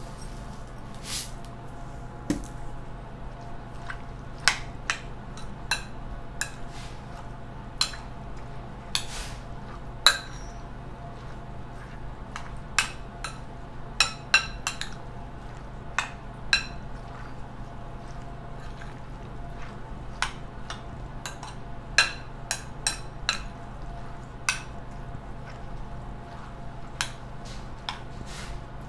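Metal spoon clinking against a glass bowl while stirring pico de gallo with nopales, in irregular clinks about once a second, over a low steady hum.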